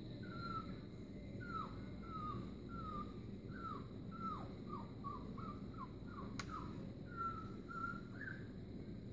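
A puppy whining in a series of short, high whimpers, many falling in pitch, coming quicker in the middle of the run. A single sharp click sounds about six seconds in.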